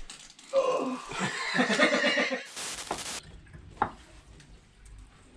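A person laughing, then a brief burst of hiss about two and a half seconds in and a single click a second later.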